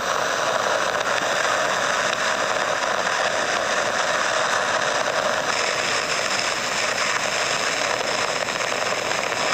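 Steady, dense mechanical-sounding noise, a continuous hiss with faint steady tones above it and no pauses; its upper hiss shifts slightly about five and a half seconds in.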